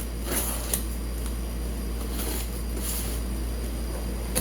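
Light rustling and a few soft clicks of hands rummaging through the packing in a box, over a steady low hum.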